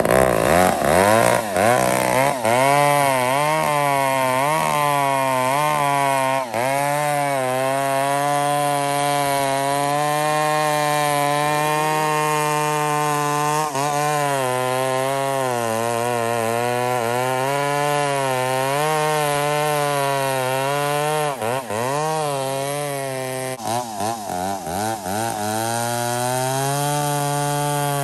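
McCulloch chainsaw fitted with a go-kart engine, run hard while cutting through a large log. Its engine pitch sags and recovers again and again as the chain loads up in the wood, with a cluster of quick dips a few seconds before the end.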